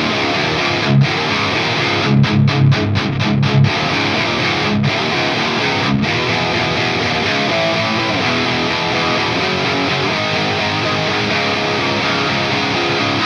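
Double-tracked distorted electric guitar riff, played unaccompanied: a Gibson Les Paul Custom with a 498T humbucker through Line 6 Helix Native's Placater Dirty amp model and MV30 4x12 cabinet impulse responses. It starts with tight, chugging low notes with short stops about two to four seconds in, then moves to ringing chords.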